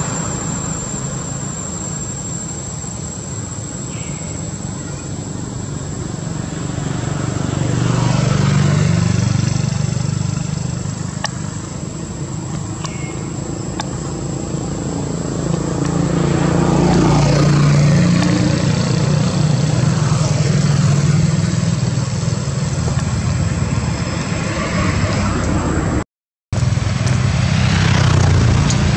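Motor vehicle engine running with a continuous low hum, swelling and easing a few times. The sound cuts out completely for a moment near the end.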